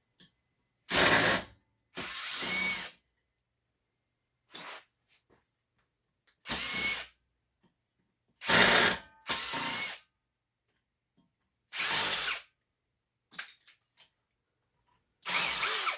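Power drill/driver run in about eight short trigger bursts, each under a second with pauses between, backing out fasteners to work a part of a ceiling fan loose.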